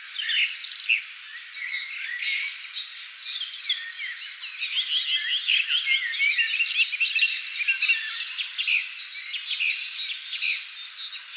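A chorus of many songbirds singing together: a dense, unbroken tangle of high chirps, quick trills and short whistled glides.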